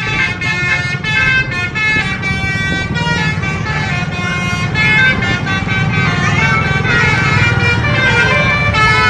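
Bus 'telolet' horn, a set of air horns playing a quick tune of short stepping tones, over the steady low sound of the bus engine.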